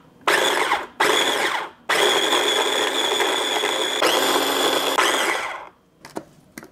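Small electric food processor pulsed twice briefly, then run steadily for about four seconds, its motor whining as the blade chops lemongrass, garlic and shallots into a wet marinade. It stops near the end, followed by a couple of light clicks.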